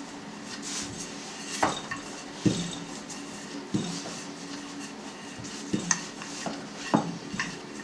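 Wooden rolling pin rolling out a thin sheet of dough on a board, with about five sharp knocks of the pin against the board a second or two apart.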